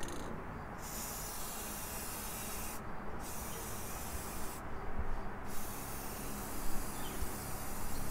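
Aerosol spray paint can hissing as paint is sprayed, in long bursts broken by three short pauses as the nozzle is released.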